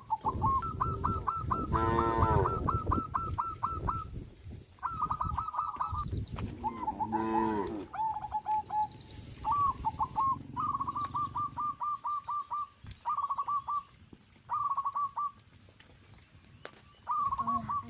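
Farm fowl calling in quick repeated series of short, high notes, several runs of them. Two longer, lower calls come about 2 seconds and 7 seconds in, with a low rumble under the first half.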